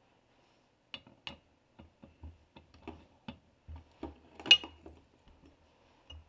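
Light metallic clicks and knocks as a round metal end piece of a hydraulic cylinder is handled and slid onto its chrome piston rod. One sharper metal-on-metal knock with a brief ring comes about four and a half seconds in.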